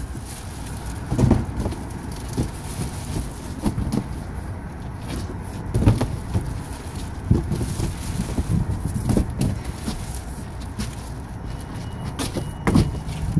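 Wind buffeting the microphone in a steady low rumble, with scattered knocks and rustles as air filters and their cardboard boxes are handled; one of the knocks comes near the end.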